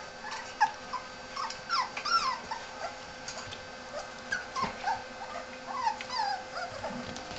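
Five-week-old Italian Greyhound puppies yipping and whining as they play-fight, many short high-pitched cries that rise and fall in pitch.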